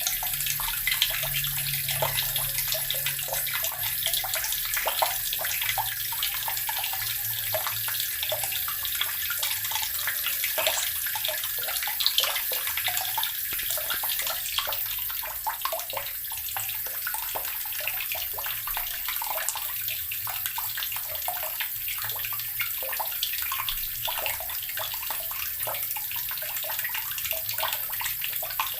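Water from a tap pouring into an earthen barrel, splashing and gurgling steadily with many small splashes, a little quieter from about halfway.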